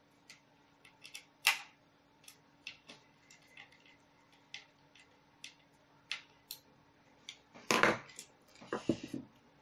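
Small screwdriver driving screws into the plastic printhead carriage of an HP OfficeJet 8600, making scattered light clicks and ticks with one sharper click. Near the end come louder knocks and rustling as the screwdriver is put down and the assembly is picked up.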